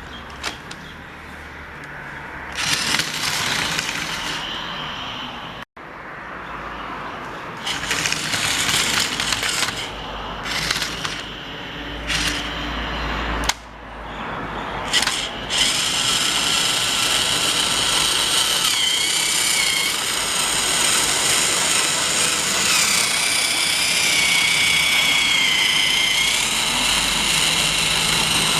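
Small battery-powered electric motor and plastic gearing of Trackmaster toy train equipment whining. It runs in short stop-start bursts at first, then continuously from about halfway through with a steady, slightly wavering whine.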